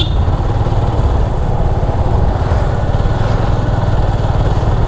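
Motorcycle engine running steadily under way, with rushing wind noise on the microphone.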